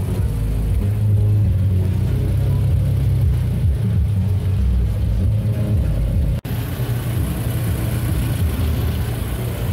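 A loud, deep low rumble that cuts out for an instant about six and a half seconds in.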